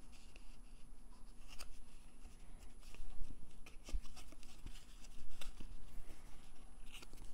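Cardstock rubbing and rustling under the hands, with scattered light clicks and taps, as a folded paper card is slid and pressed flat.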